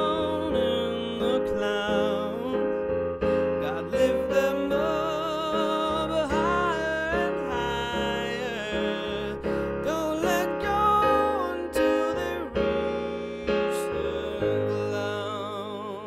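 A man singing sustained notes with vibrato, accompanied by chords on a digital piano, the music slowly getting quieter.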